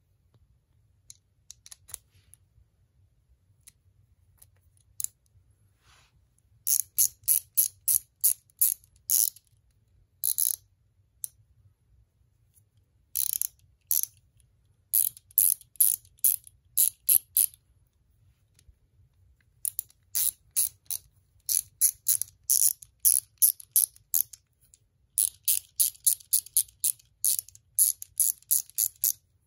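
Pawl of a 1/4-inch drive hand ratchet clicking quickly and evenly, about five clicks a second, as a quick spinner fitted on its square drive is spun with the fingers. The clicking comes in several runs of a few seconds each, broken by short pauses, after a quiet start with only a few faint ticks.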